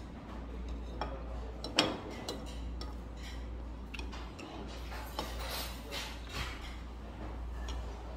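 Eating at the table: chewing, with scattered light clicks and clinks of chopsticks against a bowl, the loudest about two seconds in. A steady low hum runs underneath.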